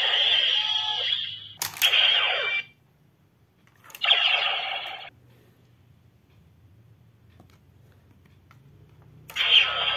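Bootleg DX Decadriver toy belt playing its electronic voice calls and transformation sound effects through its small speaker, in short bursts. There is a sharp click about a second and a half in, a quiet gap after about five seconds, and the belt's sounds start again near the end.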